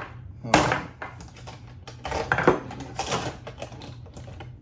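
Ratchet wrench worked by hand: the metal ratchet mechanism clicks and the loose parts rattle in three short bursts, the rattle coming from play in the head and adapter.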